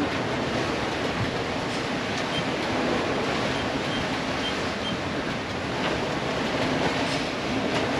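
Steady rushing noise of wind and sea around a sailing catamaran moving fast under sail.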